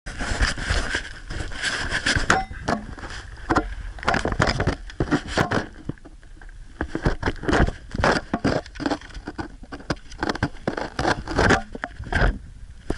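Footsteps on rocky limestone and loose stones: irregular crunches, knocks and scrapes under trail shoes.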